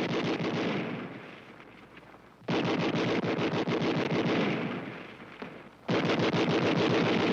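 Large machine gun firing long bursts at about ten shots a second. One burst ends about a second in and its echo dies away. The next starts abruptly a little later and trails off, and a third starts abruptly near the end.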